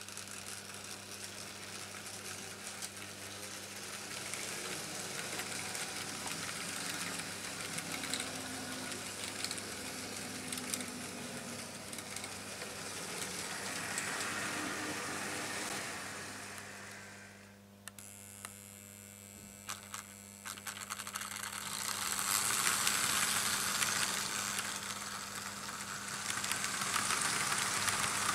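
Vintage Märklin H0 model trains running on stamped-metal M-track: a steady rattle of wheels on the metal rails with scattered clicks, over a constant electric hum. The rattle fades a little past the middle, then returns louder with sharper clicks as a train of coaches passes close.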